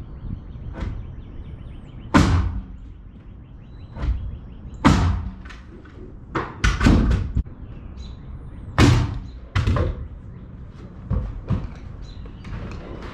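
Pneumatic nail gun firing nails into wooden framing and sheathing: a dozen or so sharp knocks at uneven intervals, with a quick run of several about halfway through.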